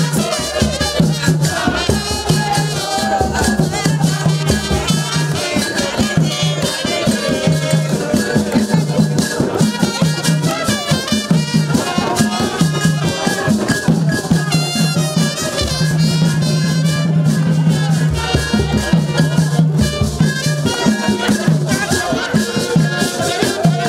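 Lively dance music with a fast rattling shaker rhythm over a pulsing bass line, with a singing voice over it.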